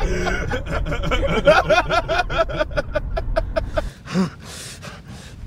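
Men laughing hard in a car, in rapid repeated bursts over a low rumble. The laughter and rumble cut off about four seconds in, followed by a short voice sound.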